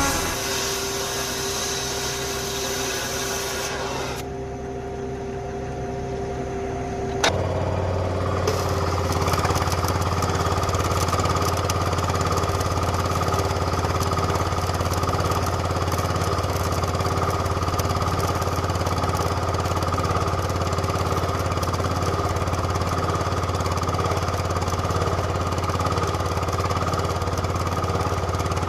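An engine or motor running steadily with a low hum. About seven seconds in there is a sharp click and the hum grows louder, then a steady higher whine joins and holds.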